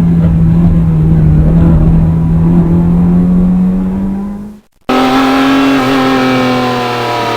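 A car engine runs hard at high revs in one steady note that creeps up in pitch, then cuts off abruptly about four and a half seconds in. After a split-second gap a second engine sound takes over, its pitch slowly falling.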